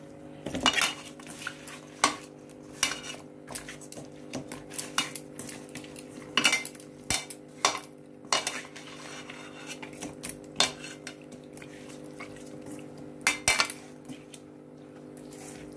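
A hand tossing and rubbing small whole fish with turmeric and salt in a stainless steel bowl: irregular clinks and knocks of fish and fingers against the metal, over a steady low hum.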